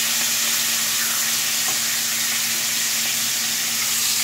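Pork chops sizzling in olive oil in a frying pan: a steady, even hiss.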